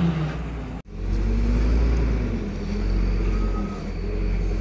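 Heavy diesel truck engine running steadily, with a brief dropout about a second in.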